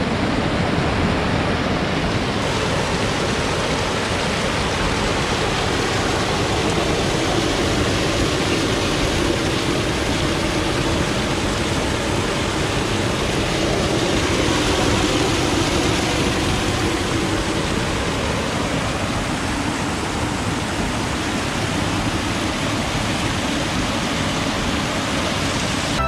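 Small waterfall and stream rushing over rocks, heard close up: a steady, loud rush of water.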